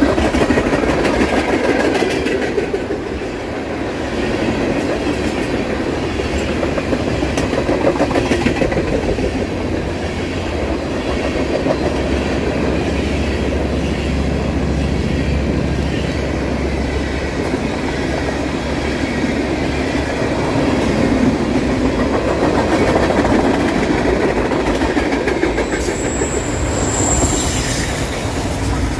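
Freight cars rolling past at close range on a curve, tank cars giving way to autorack cars: a steady rumble of steel wheels on the rail with a continuous clickety-clack. A brief high wheel squeal comes near the end.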